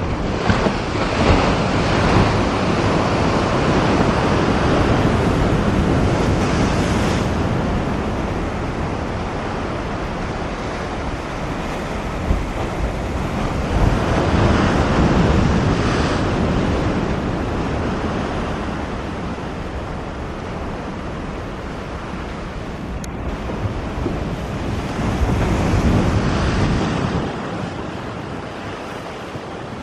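Surf surging and breaking against the shore in swells every several seconds, with wind buffeting the microphone. Under it runs the low jet rumble of the four-engine Airbus A340 climbing away, fading near the end.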